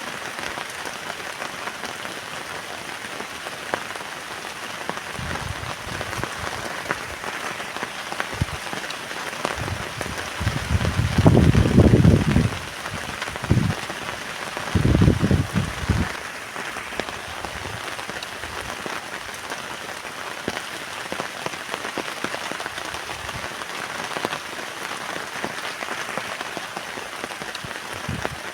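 Heavy rain hitting a tent, a steady hiss full of small drop impacts. Twice near the middle, a loud low gust of wind buffets the tent, the second shorter than the first.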